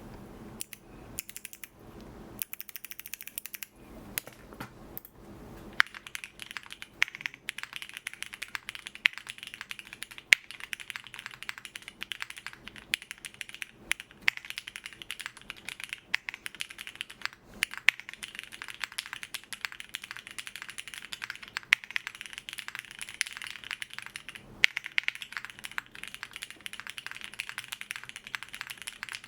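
Typing on a Swagkeys Transition TKL gasket-mount mechanical keyboard with lubed Cherry MX Black linear switches, a PP plate and GMK keycaps: a steady stream of clacky keystrokes. Before it, about the first six seconds hold scattered clicks and noise, and the fast typing starts after that.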